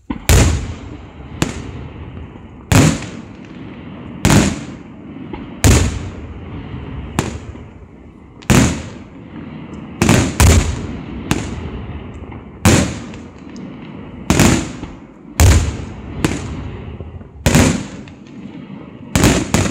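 Aerial fireworks shells bursting in a steady barrage: a sharp loud bang about every second and a half, sometimes two in quick succession, each followed by a rolling echo.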